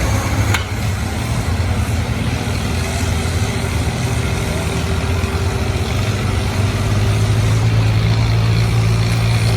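Farm tractor engine running steadily under load as it pulls the sled, getting louder about six seconds in. A single sharp click about half a second in.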